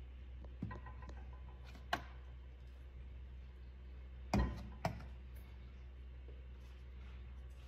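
A few light knocks of spice jars and food containers being picked up and set down on a kitchen countertop, the loudest about four and a half seconds in, over a steady low hum.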